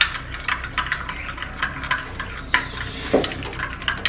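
A spoon stirring a thick potato-puree face-mask mix in a bowl, clinking and scraping against the bowl in an uneven run of clicks. There is a somewhat fuller knock about three seconds in.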